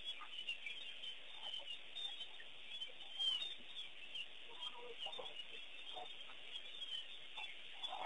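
A chorus of wild birds chirping continuously, with scattered lower calls now and then and one louder call a little past three seconds in.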